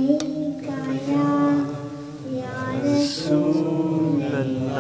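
A young boy chanting a devotional naat in long, drawn-out melodic notes, with a lower voice holding notes beneath his.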